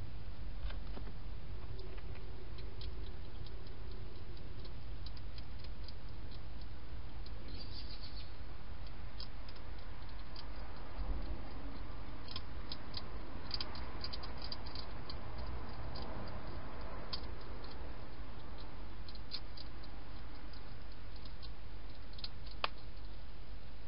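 A wild hedgehog eating inside a clear plastic feeding box: many small scattered clicks of chewing, busiest about halfway through, with one sharper click near the end, over a steady low hum.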